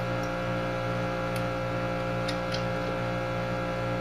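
Steady electrical hum, with a few faint light clicks as the throttle linkage and cable fittings on the throttle body are handled.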